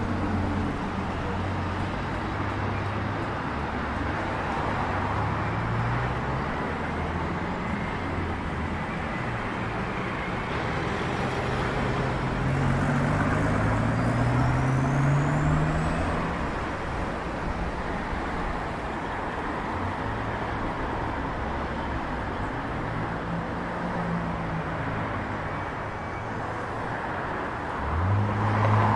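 Road traffic on a busy city street: cars and other vehicles driving past, a steady mix of engines and tyre noise. About halfway through an engine note rises as a vehicle speeds up, and near the end a louder vehicle passes close by.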